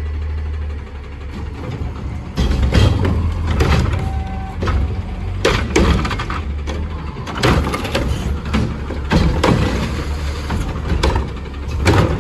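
Garbage truck's diesel engine running under load, with repeated irregular metallic clanks and bangs starting about two seconds in, typical of carts or the packer mechanism being worked.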